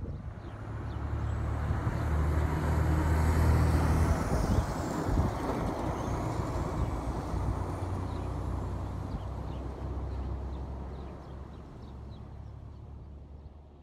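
Diesel semi-truck pulling a bulk tanker trailer drives slowly past, its low engine note growing louder over the first few seconds, holding, then fading away near the end.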